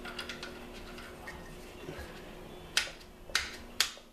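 Allen key and small metal parts being handled while the front end cap and sling swivel come off a rifle stock: light ticks, then three sharp clicks about half a second apart near the end.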